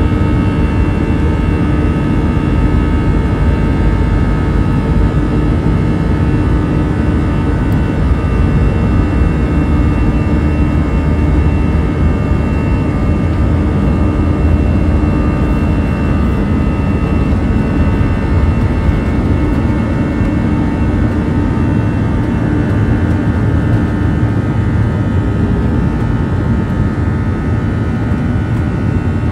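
The Airbus A321's CFM56 turbofan engines at takeoff power, heard inside the cabin over the wing: a steady loud rumble overlaid by a buzz of many steady tones through the takeoff roll and liftoff.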